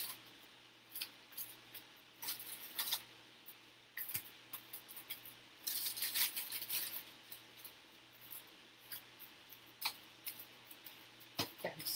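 Faint crinkling and rustling of the graham cracker packet and the aluminium foil lining the baking pan, with small clicks, as whole graham crackers are pulled out and laid in the pan. The rustles come in short clusters.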